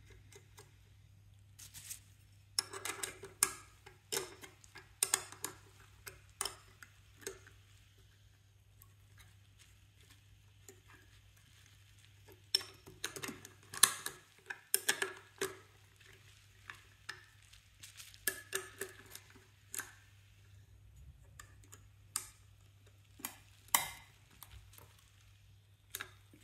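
Metal parts of an Alvey 650A side-cast reel's swing mount being handled and fitted, a washer and pivot screw going on: scattered clicks and clinks in bursts, with a pause of a few seconds partway through. A steady low hum sits underneath.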